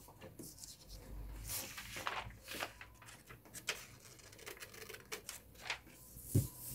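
Scissors snipping through pattern paper, with the paper rustling as it is handled; faint, scattered snips and crinkles, and a soft knock near the end.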